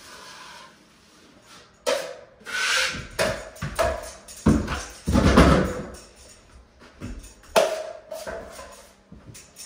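Drywall taping knife scraping and clanking against a metal mud pan, in irregular knocks and scrapes. Heavy thumps come around the middle, from stepping down off an aluminium stepladder onto the floor.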